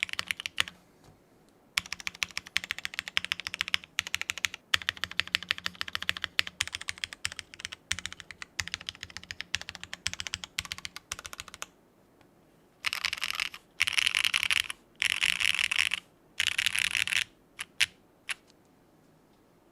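Typing on a custom TGR Tomo SE mechanical keyboard with lubed, polished Cherry MX Black linear switches, a polycarbonate plate and GMK keycaps: a long run of steady keystrokes, then four short bursts of very fast key presses about a second each, and two last single clicks.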